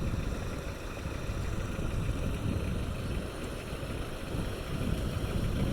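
Suzuki Samurai 4x4s driving off-road: a steady low rumble of engine and driving noise.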